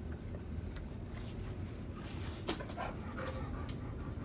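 Pit bull mix sniffing and licking up close, a few short wet snuffling sounds, most of them about two seconds in and again near the end.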